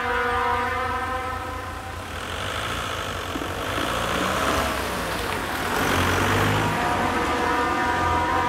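A car drives over the level crossing, its engine and tyre noise building and loudest about six seconds in. Behind it, the AŽD 71 crossing warning signal keeps up its steady electronic ringing tone, drowned out while the car passes and clear again near the end.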